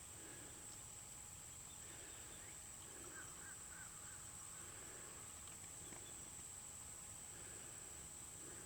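Faint outdoor ambience: a steady high-pitched insect trill, with a few faint, short bird chirps about three seconds in.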